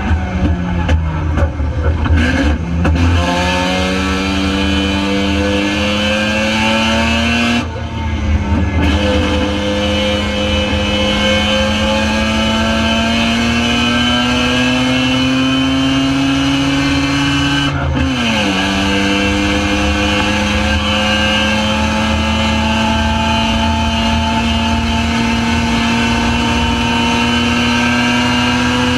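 Spec RX7 race car's Mazda rotary engine under hard acceleration: the engine note falls during the first two seconds, then climbs, dropping at upshifts about 8 and 18 seconds in, with a slow, steady rise in pitch between them.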